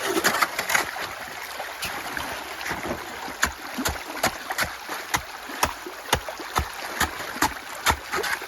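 Meltwater running through a ditch channel with ice and snow, with a shovel scraping and knocking at the ice: from about halfway through, sharp knocks come roughly twice a second.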